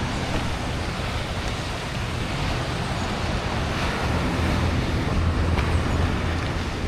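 Steady rushing noise of ocean surf and wind on the microphone, with a heavy low rumble.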